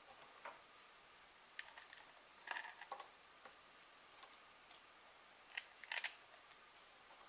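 Faint, irregular small clicks and taps of screws and a plastic controller case being handled while the back cover is screwed on, with a short cluster of sharper clicks about 2.5 s in and again near 6 s.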